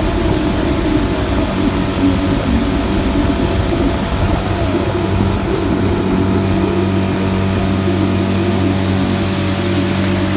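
Boat motor running steadily: a low, even engine hum over a broad rushing noise, the hum settling and steadying about halfway through.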